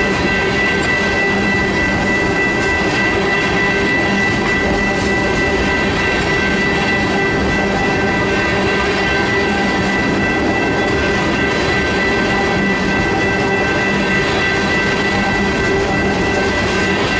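Freight train tank cars rolling past: a steady rumble and clatter of steel wheels on the rails, with a steady high-pitched ringing tone held over it.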